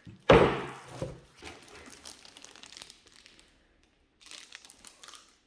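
Packing material from flat-pack desk parts crinkling and rustling as it is handled: a sudden loud rustle just after the start that trails off in crackles, a short pause, then more crinkling near the end.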